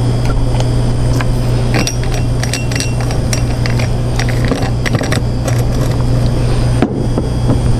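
Sample bottles and screw caps clicking and clinking as they are handled and capped on a lab bench, a run of light clinks that is thickest about two to three and a half seconds in. A loud steady low hum runs under it.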